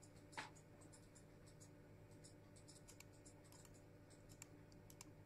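Near silence: room tone with a few faint computer mouse clicks, the clearest about half a second in.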